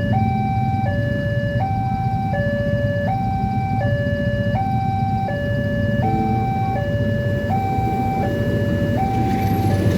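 Electronic two-tone warning alarm of an Indonesian railway level crossing, alternating between a lower and a higher tone about every three-quarters of a second, signalling that a train is approaching. A low rumble runs underneath.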